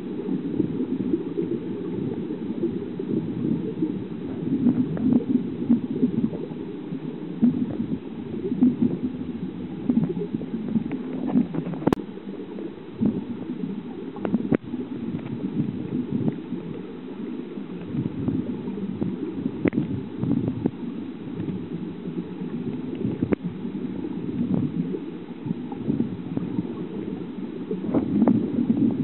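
River current heard underwater: a steady, low, gurgling rush of moving water, with a few scattered faint clicks.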